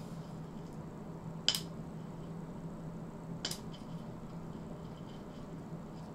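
Two sharp clicks about two seconds apart, the first the louder, over a steady low electrical hum.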